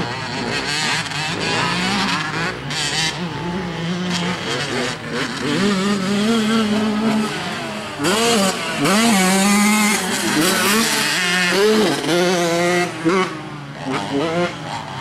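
Several 50cc two-stroke mini dirt bike engines racing, the buzzing whine rising and falling again and again as the riders open and close the throttle and shift. It is loudest about halfway through.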